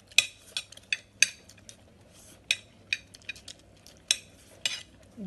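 Metal spoon and fork clinking and scraping against ceramic bowls and a plate while eating: a dozen or so sharp, irregular clinks.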